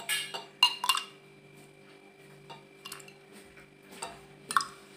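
Steel ladle clinking and scraping in a stainless steel pot of nungu sarbath with ice, as it is scooped out into a glass: scattered clinks and taps, the loudest just under a second in and again near the end.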